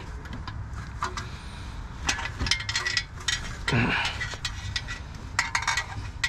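Small metal clicks and clinks of a 1/4-inch ratchet and 13 mm socket being worked on a tight, hard-to-reach bolt, coming in quick clusters about two seconds in and again near the end, over a steady low rumble. A brief voice sound comes about midway.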